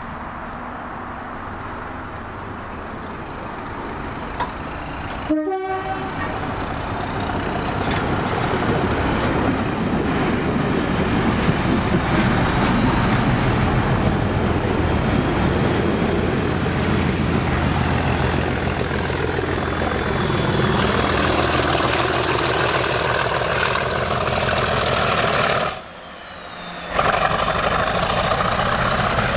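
A train of a Class 37 diesel locomotive and coaches passing close by at speed, building to a steady loud rumble of wheels and engine. It breaks off briefly near the end, then carries on as the locomotive, with its English Electric V12 diesel, runs away along the line.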